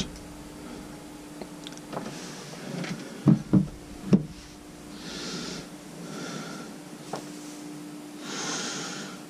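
Handling noise as a t-shirt is picked up and moved: three soft knocks about three to four seconds in, then several short breaths out through the nose close to the microphone. A faint steady hum runs underneath.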